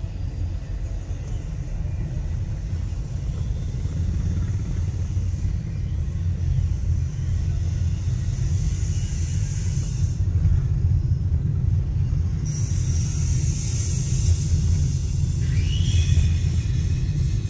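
Steady low rumble of a car driving along a city street, heard from inside the moving car, with hissy road noise swelling twice and a short rising whine near the end.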